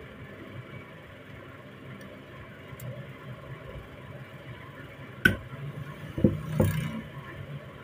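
A steel hand hammer striking the metal rifle receiver: three sharp knocks, one about five seconds in, then two close together a second later, over a steady low hum.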